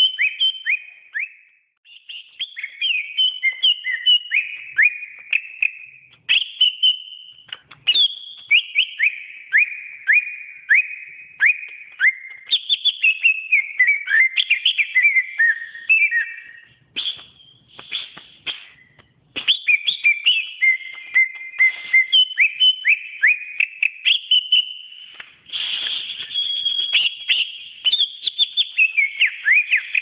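Greater green leafbird (cucak ijo) singing a long, varied song of rapid whistled notes, quick pitch sweeps and trills, broken by a few short pauses.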